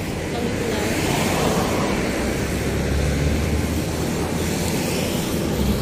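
Steady rushing noise with a deep rumble that swells about three seconds in.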